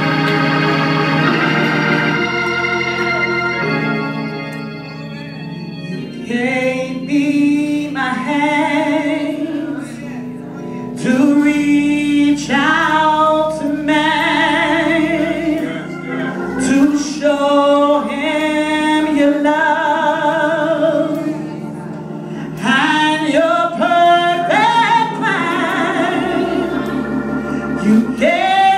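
Gospel solo: a woman singing into a microphone over sustained organ chords. For the first few seconds only held organ chords play, and the voice comes in about six seconds in.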